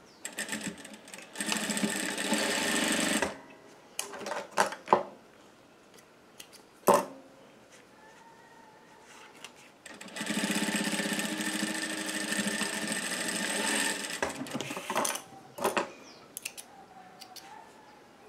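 Industrial single-needle sewing machine running in two stretches, about two seconds and then about four seconds, stitching a straight seam to close a pouch lining. Short clicks and knocks from handling the work come between and after the runs.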